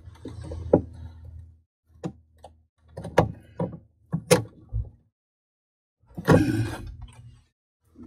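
Plastic PVC pipe, elbow and union fitting handled and fitted together: a string of light plastic clicks and knocks, then a longer scraping rub about six seconds in.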